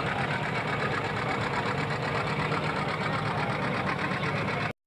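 Pro stock pulling tractor's diesel engine running steadily at low speed with a fast, even pulse. It cuts off suddenly near the end.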